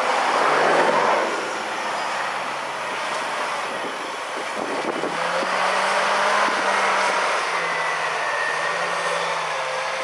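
John Deere 8345R tractor's diesel engine running steadily under load as it pulls a mounted S-tine field cultivator through the soil, with a faint whine over the engine noise. Loudest about a second in.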